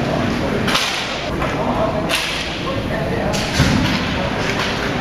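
Inline hockey play: sharp cracks of sticks striking the puck and the rink floor several times, over the steady rolling of skate wheels, with a heavier thud a little past halfway.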